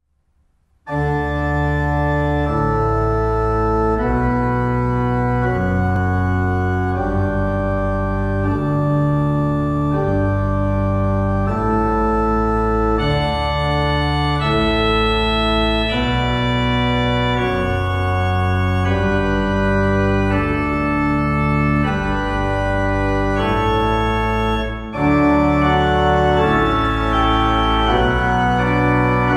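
Organ music: slow, sustained chords that change every second or two, starting about a second in, with a short break near the end after which it comes back slightly louder.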